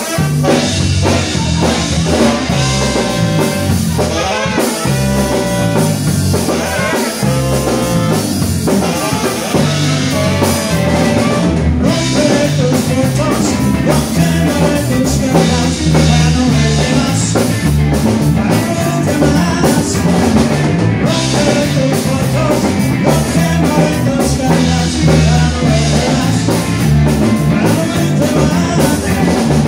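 Live band playing: drum kit, electric bass, electric guitar, trumpet and saxophone, with a man singing into a microphone over the PA.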